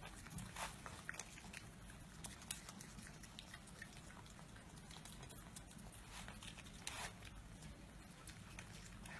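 Faint chewing and picking sounds of a raccoon eating food pieces off a table: scattered small clicks and crunches over a low steady hum.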